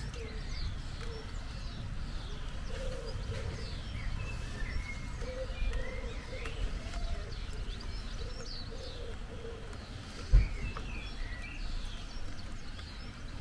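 Pigeons cooing in repeated short phrases, with small birds chirping over steady low background noise. A single sharp thump about ten seconds in.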